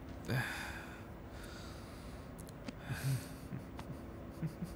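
A man breathing heavily: two loud, noisy breaths, one just after the start and one about three seconds in, with softer breaths after, over a faint steady hum.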